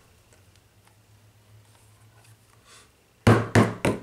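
Faint handling of a flexible plastic stencil over a gel printing plate, then near the end three quick sharp knocks on the tabletop, about three a second.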